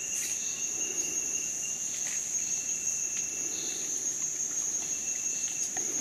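Steady high-pitched drone of a rainforest insect chorus, with a second, fainter insect tone that comes and goes and a few faint ticks.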